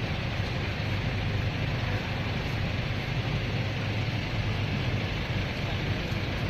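Steady outdoor background noise: an even rushing hiss with a low hum beneath it.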